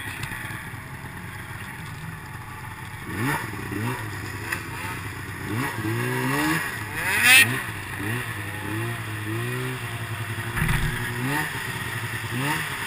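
Snowmobile engine idling, then revving up and down over and over as the sled sets off and rides through deep snow. A brief, loud, sharp noise comes about seven seconds in.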